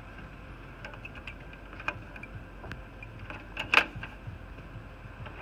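Sheet-metal top cover of a Cisco ISR 4351 router chassis being handled and slid into place: scattered light clicks and scrapes, with one sharper metal clack a little before four seconds in.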